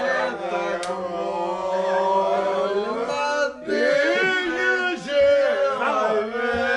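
Several men singing loudly together in parts. Long held notes sound at different pitches at once, with a short pause for breath about three and a half seconds in.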